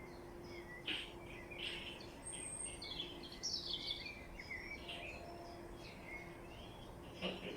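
Several small birds chirping and twittering, short calls and trills overlapping, over a faint steady low hum.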